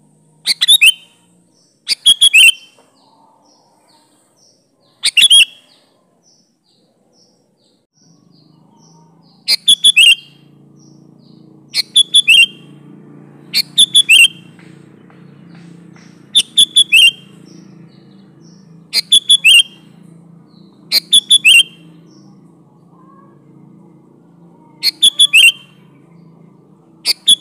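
Sooty-headed bulbul singing: short, loud, bubbly phrases of two or three quick notes, repeated about every two seconds, with fainter high chirps between them early on. A low background rumble comes in about eight seconds in.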